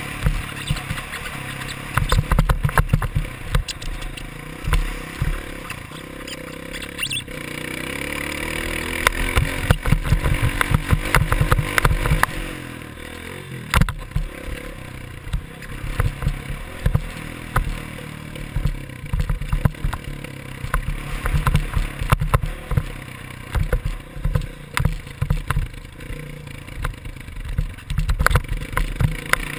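Dirt bike engine running hard on a motocross track, its pitch climbing for a few seconds about a third of the way in, heard through a helmet-mounted camera with heavy wind buffeting and frequent knocks over bumps.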